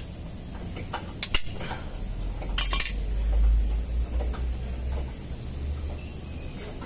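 Steel brake parts clinking and knocking: a few sharp metallic clinks, the loudest cluster about two and a half seconds in, over a low rumble through the middle.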